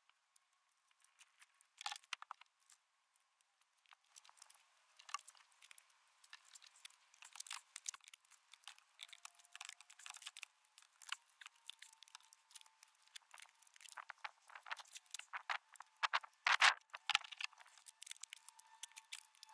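Rustling, crinkling and clicking handling noise as a battery in a fabric bag is fitted and strapped to an e-bike frame: a few noises about two seconds in, then a denser run of crackles and clicks that grows busier toward the end.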